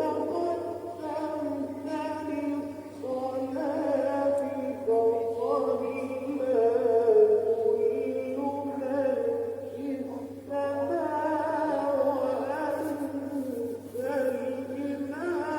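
Music with a singing voice: held, wavering sung notes that step up and down in pitch, over a faint steady low hum.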